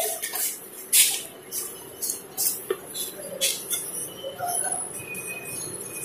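Felt-tip marker writing on chart paper: a run of short, irregularly spaced strokes as letters are drawn.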